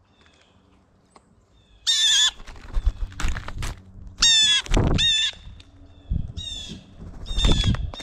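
Red-bellied woodpecker giving its rolling, trilled churr call, a harsh note about half a second long repeated five or six times from about two seconds in. Low knocks and thumps from birds working the peanut pile fall between the calls.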